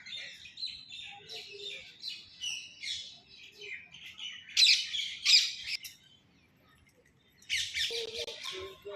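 Birds chirping busily, with harsh squawks. Two loud squawks come about halfway through, then a short lull, then a dense burst of calls near the end.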